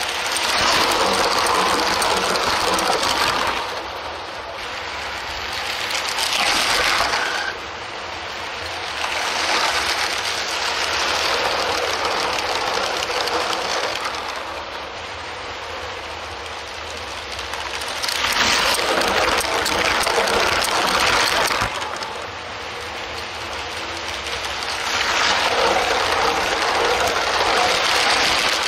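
Motorised Lego trains running on plastic Lego track: the small electric motors and wheels make a whirring clatter that grows loud each time a train runs close by, several times over.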